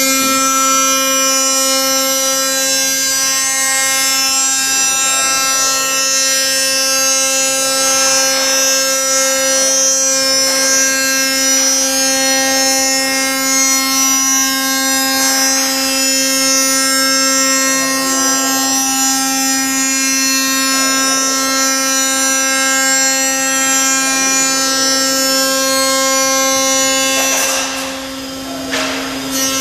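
A 5-axis CNC machining center's spindle milling a hollow metal extrusion, giving a loud, steady, pitched whine with evenly spaced overtones as the end mill cuts. The sound dips briefly near the end.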